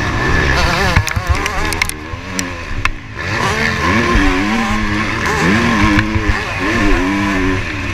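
Motocross dirt bike engine heard up close from a helmet camera, revving up and falling back again and again as the rider works the throttle and gears through a turn and down a straight. The revs drop away about three seconds in, then climb again. A few sharp clicks come between one and two seconds in.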